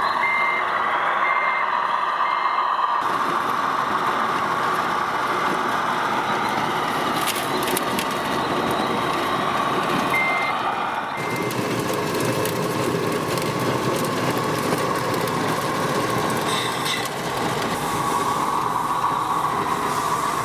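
Radio-controlled construction machine running with a steady whirring, and a reversing beeper giving three short beeps at the start and two more about ten seconds in.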